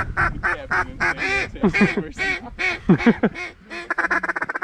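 Hen-mallard-style duck calling: a run of loud, evenly spaced quacks, some drawn out and falling in pitch, then a rapid chatter of about ten notes a second near the end, like a feed chuckle blown on a duck call.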